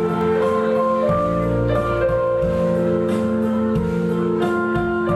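Instrumental music: sustained chords with a bass line moving underneath, changing about once a second, with no singing.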